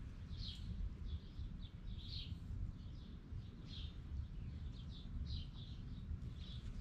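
Birds chirping: a string of short, rough chirps, several a second at times, over a steady low rumble.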